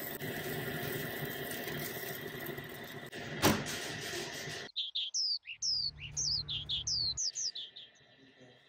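Fish sizzling and crackling on the rack of a kitchen fish-grill drawer, with a single sharp clunk about three and a half seconds in as the drawer is shut. Then a bird sings a quick run of short, falling chirps for about three seconds.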